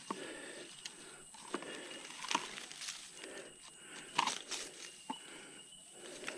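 Leaf litter and sticks crunching and rustling underfoot and under the scooter's wheels on a forest floor, in uneven bursts about once a second, with sharp twig snaps and clicks among them.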